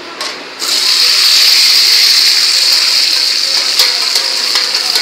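Chopped onion hitting hot oil in a steel kadhai, setting off a loud frying sizzle that starts suddenly about half a second in and holds steady, easing slightly towards the end.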